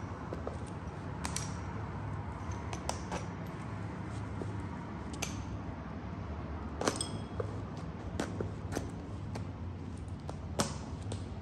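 Stiletto heels of high-heel boots tapping on a concrete floor and snapping and crushing sticks of chalk: scattered sharp clicks and cracks, the loudest about seven seconds in and again near the end, over a steady low hum.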